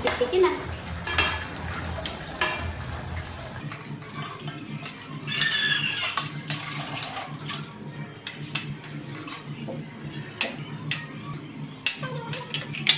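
A metal ladle and spoon clinking and scraping against a metal cooking pot, with sharp knocks scattered throughout, as pieces of chicken are scooped out of the broth.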